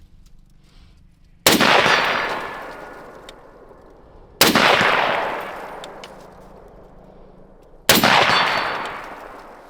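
Three unsuppressed rifle shots, about three seconds apart, each a sharp crack followed by a long fading echo.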